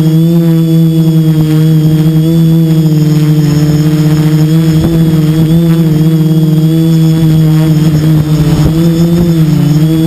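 Quadcopter's electric motors and propellers, recorded from the onboard camera, droning steadily with small wavers in pitch as the motors correct. Gusts of wind buffet the microphone under the drone, strongest about halfway through and again near the end.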